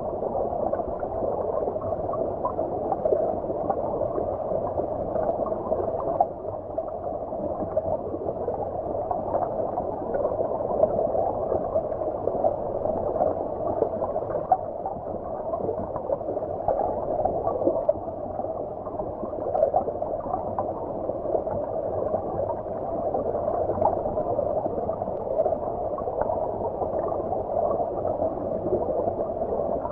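A stream's flowing water heard underwater: a steady, muffled gurgling and bubbling with nothing high-pitched in it.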